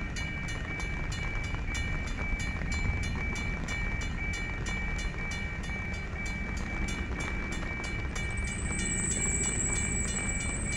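Level-crossing warning bell ringing rapidly, about four to five strikes a second, over a steady low rumble as the train approaches. A high steady whine comes in near the end.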